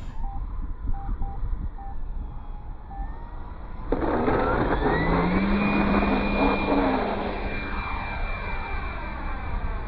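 Electric ducted-fan RC jet: its fan whine jumps up about four seconds in, rises in pitch and then holds steady as the plane passes, over a steady rumble of wind on the microphone.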